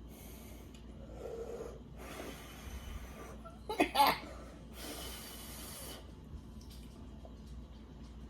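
A woman breathing heavily in long, noisy breaths while straining to hold down a can of soda without burping, with one short, louder vocal sound about four seconds in.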